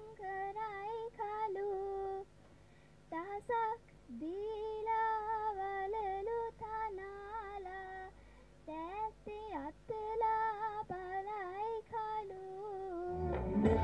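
A girl singing solo and unaccompanied into a microphone, a Sinhala song in long held, ornamented phrases with short breaks between them. Loud music starts just before the end.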